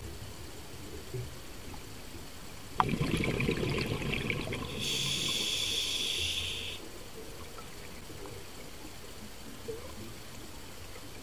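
Scuba diver breathing through a regulator underwater. About three seconds in, exhaled bubbles rumble out for nearly two seconds, then an inhaled breath hisses through the demand valve for about two seconds.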